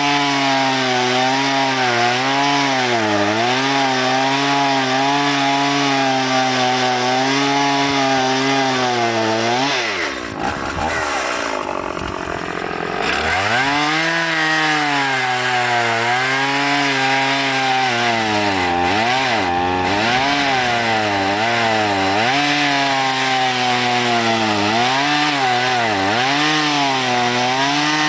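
Stihl MS 170 two-stroke chainsaw cutting Douglas fir logs, its engine pitch wavering as the chain bogs and frees in the wood. About ten seconds in it drops back to idle, then revs up again a few seconds later and goes back into the cut.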